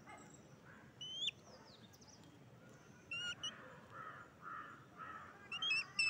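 Babblers calling: a couple of sharp, rising squeaky notes about a second in, then from about three seconds on a run of short, rasping calls about twice a second, with more squeaky notes near the end.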